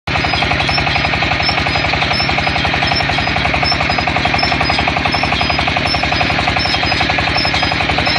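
Water well drilling rig running: a loud, steady, rapid mechanical pounding, many even beats a second, that goes on without a break.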